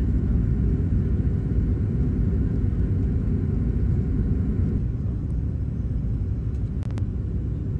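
Steady low rumble of airliner cabin noise from the engines and airflow, with a couple of faint clicks near the end.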